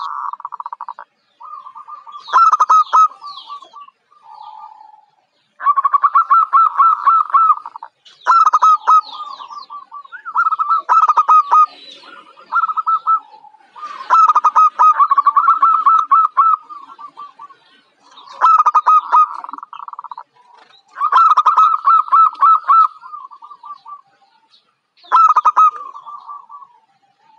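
Zebra dove (perkutut) singing: about ten phrases, each a rapid run of short staccato cooing notes, with a new phrase every two to three seconds and brief pauses between them.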